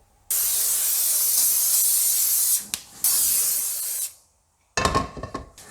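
Coconut oil cooking spray hissing onto fry pans in two sprays, one of about two seconds and a shorter one of about a second. A short clatter of kitchen utensils follows near the end.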